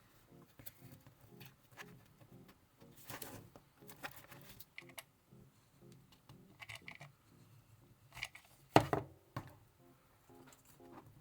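Quiet background music with a plucked-string melody, over scattered short clicks and taps of crafting work, with one sharper knock about nine seconds in.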